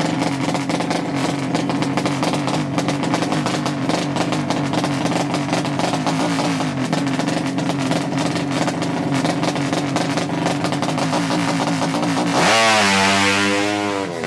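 Drag-race motorcycle engine running at a steady, fast idle, then revved hard about twelve seconds in, its pitch sweeping up before dropping away near the end.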